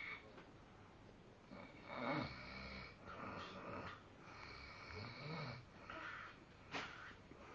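A man snoring in deep sleep, a run of snores coming every one to two seconds.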